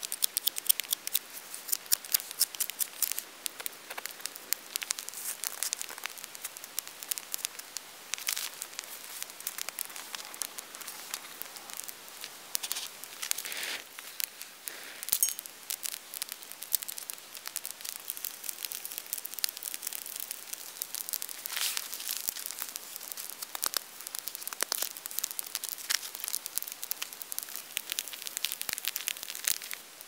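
Wood campfire crackling: dense, irregular sharp snaps with occasional louder pops.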